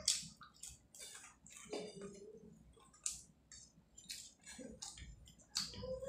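Close-up chewing and mouth noises while eating, with fingers mixing rice and curry on a plate. It comes as a string of short, irregular clicks and squishes.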